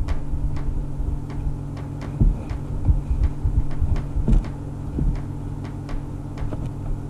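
A cat licking right at the microphone: irregular wet clicks a few times a second, with low thumps over a steady low hum.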